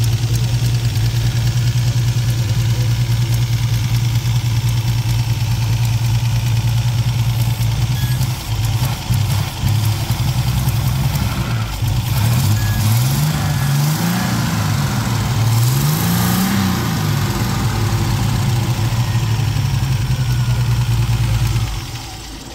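A Ford 3.0-litre V6 with a Holley four-barrel carburettor idling steadily. Around the middle, the throttle is blipped three times in quick succession, each rev rising and falling back to idle. The sound drops away near the end.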